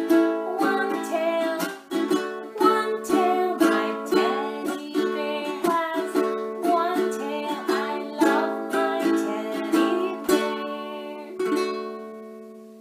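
A woman strumming a ukulele in a steady rhythm and singing along; near the end a last chord rings out and fades away.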